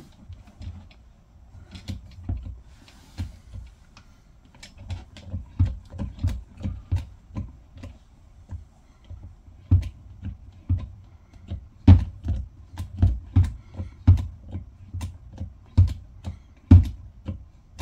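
Hand-pumped hydraulic lug crimper being worked, its handle and pump clicking and knocking with each stroke as it re-crimps a lug onto a 2/0 battery cable because the first crimp felt loose. The strokes are sparse and faint at first, then come faster and louder after a few seconds.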